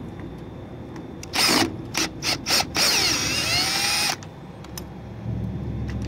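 Cordless drill/driver turning a screw in a door's latch faceplate: a short burst, three quick blips, then a run of just over a second in which the motor's pitch swings up and down.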